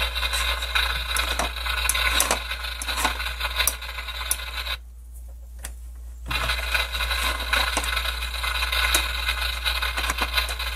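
A toy kitchen grill's electronic sizzling sound effect, played crackly through its small speaker. It cuts out a little under five seconds in and starts again about a second and a half later, with a few light plastic clicks from the spatula and buttons.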